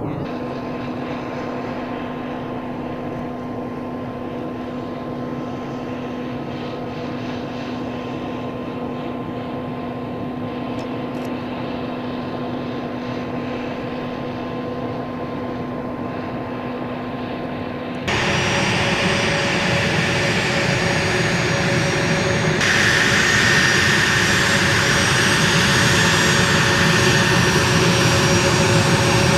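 A-10C Thunderbolt II jets' twin TF34 turbofan engines running with a steady whine. About 18 seconds in the sound cuts abruptly to a louder, brighter engine whine, and a higher whine comes in a few seconds later.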